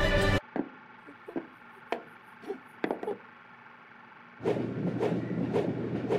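A handful of separate sharp wooden knocks as a block and cylinder are handled on a tabletop. Then, about four seconds in, a training centrifuge starts up: a steady low machine hum with a repeating whoosh as its arm spins around the chamber.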